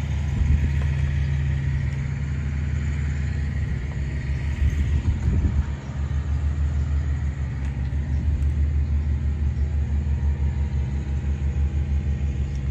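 A steady low mechanical rumble with a fast, even pulse.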